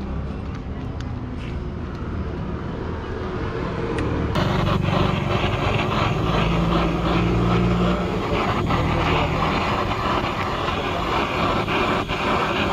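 Handheld gas blowtorch burning with a steady hiss as its flame browns grated cheese. The hiss starts suddenly about four seconds in, over a low steady background hum.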